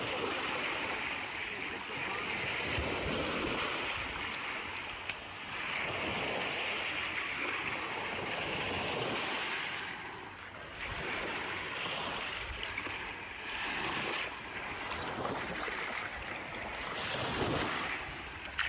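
Sea waves washing onto a sandy beach, with wind buffeting the microphone. The sound swells and eases every few seconds.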